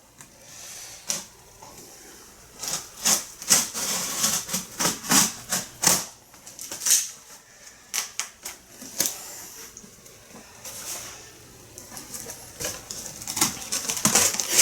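Irregular clicking, crackling and rustling of packing material being pulled and handled while unpacking a well-packed box, busiest a few seconds in and again near the end.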